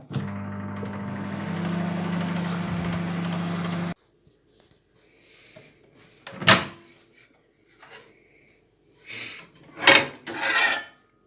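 Microwave oven running with a steady hum, which cuts off suddenly about four seconds in. A sharp click follows, then a few louder knocks and clatters near the end.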